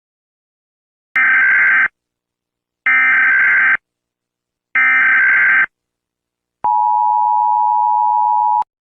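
Emergency Alert System tones: three harsh, buzzy digital data bursts of about a second each, roughly two seconds apart, followed by a steady two-tone attention signal that lasts about two seconds and cuts off abruptly.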